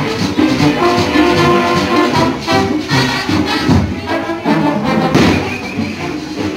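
Big band playing up-tempo Latin dance music: brass with percussion keeping a steady beat.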